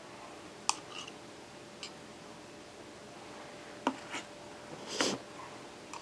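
Metal spoons clicking and scraping while scooping whipped topping from a plastic tub and dropping it into a silicone mold: a handful of light, scattered clicks, the loudest scrape about five seconds in.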